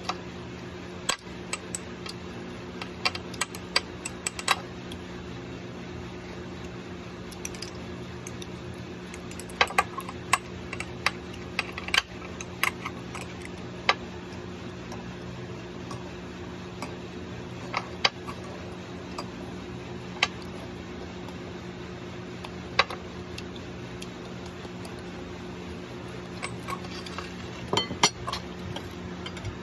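Metal spoon clinking, tapping and scraping against a balut egg in a porcelain egg cup as the egg is spooned out. The sharp clinks come in scattered bunches over a steady low hum.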